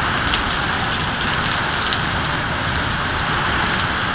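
Heavy rain falling steadily: a dense, even hiss of drops striking surfaces.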